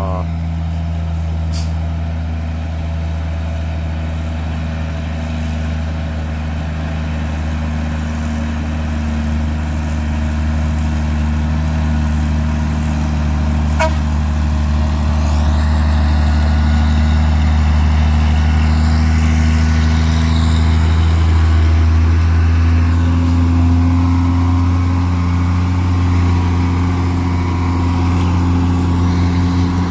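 Heavy truck's diesel engine running steadily close by, a deep even drone that rises a little in pitch and loudness past the middle.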